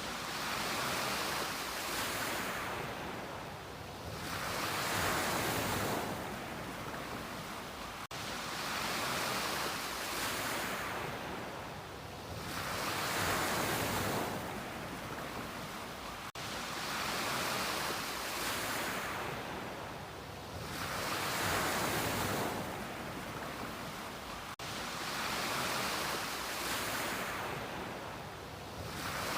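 Ocean waves breaking on a beach, the surf rising and falling in a rushing hiss. The same stretch of surf repeats about every eight seconds, with a brief dropout at each repeat where the recording loops.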